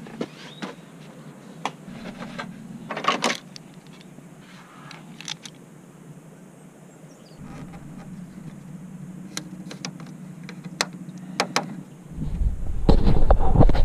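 Scattered light clicks and knocks from hands and hand tools working around a car's radiator and hoses, with a short cluster of clatter about three seconds in. A loud low rumble starts near the end.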